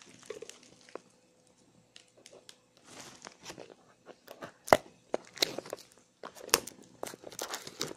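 Plastic shrink wrap being cut with a knife and pulled off a cardboard phone box: scattered crinkling and crackling with short clicks, and two sharper snaps, one near the middle and one about two seconds later.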